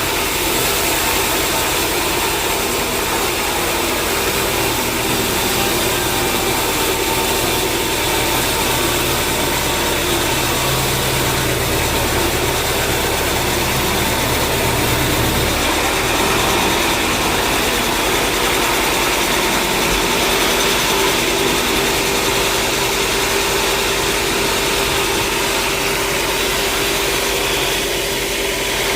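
Sawmill machinery running steadily, an engine-like drone with a constant mechanical noise over it; the deepest part of the hum falls away about halfway through.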